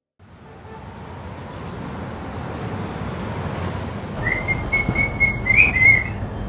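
Ambience of vehicle traffic fading in from silence as a steady low rumble that slowly grows. About four seconds in, a high whistling tone comes in over it, wavering slightly with a brief rise, and lasts about two seconds.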